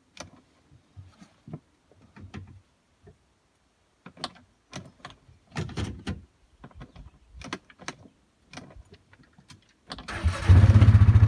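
Faint scattered clicks and rustles, then near the end an engine starts up and settles into a fast, evenly pulsing idle.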